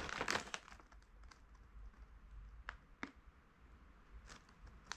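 Plastic snack bag of rice crackers crinkling as it is handled. A burst of rustling comes in the first half second, then a few scattered crackles.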